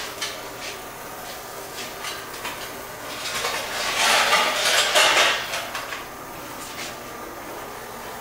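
Metal hand tools clinking and knocking against metal parts in a run of scattered short clicks. About three seconds in there is a louder rush of noise lasting roughly two seconds.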